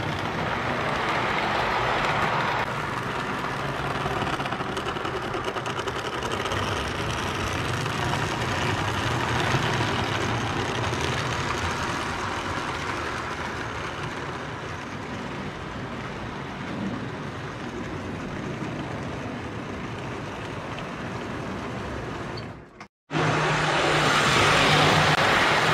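Prewar American Flyer O gauge tinplate electric trains running on metal three-rail track: a steady rumble of wheels and electric motors as the trains pass. Near the end the sound cuts out for a moment, then comes back louder with a steady low hum.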